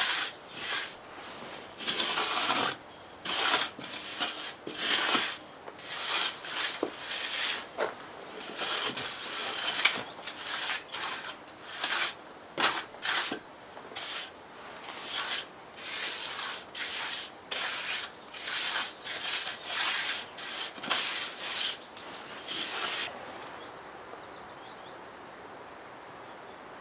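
Repeated rubbing or scraping strokes of a hand tool, about one or two a second, that stop about 23 seconds in.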